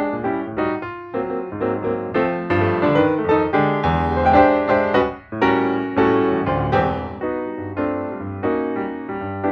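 Background piano music: a melody of quick notes over a steady bass line.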